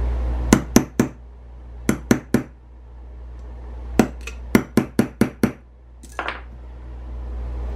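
Brass hammer tapping a steel pin punch to drive the ejector pin flush in a Savage 720 shotgun's bolt: sharp metal taps in three groups, three, three, then about seven quick ones.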